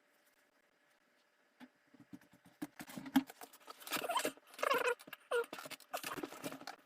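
An interdental brush scrubbing inside a dirty phone charging port: irregular fast scratching and clicking of bristles and plastic against the port, with a few short squeaks in the middle, starting after a quiet second and a half.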